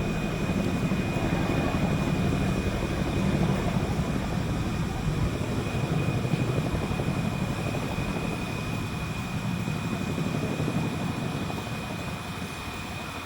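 CH-47 Chinook helicopter's tandem rotors beating, with a steady high turbine whine, growing fainter over the last few seconds.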